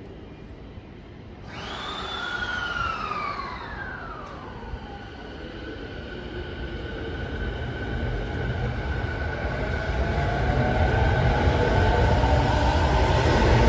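JR 209-series electric train pulling away from the platform. A second or so in, its motor whine starts with tones that sweep up and fall away. It then gathers speed with a rising whine and a rumble that grows louder.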